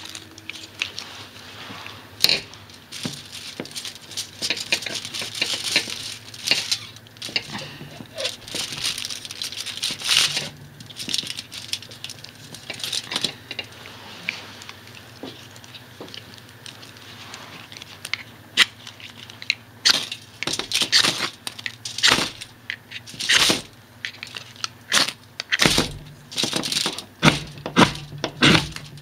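Crinkled aluminium foil rustling under handling, with many short sharp scrapes and clicks that come thicker and louder over the last ten seconds, as a homemade fire-starter block with tinder on top is set up and lit.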